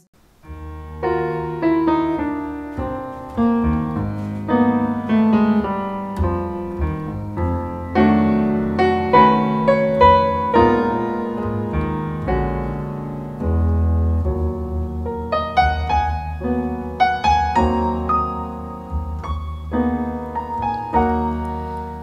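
Solo piano music played back through a DIY class D amplifier and SEAS Bifrost loudspeakers, picked up by a microphone in the room. It begins right after a brief pause.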